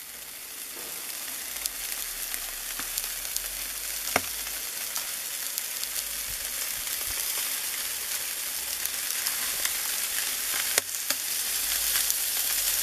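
Meat sizzling on a charcoal grill, a steady hiss scattered with small crackles and pops, one sharp pop about four seconds in; the sizzle grows slowly louder toward the end.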